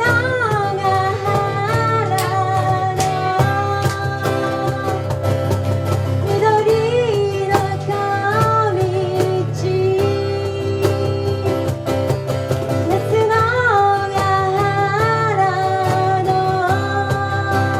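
Live pop band performance: a lead vocal sings a melody with long held notes over guitar-led accompaniment and a steady drum beat.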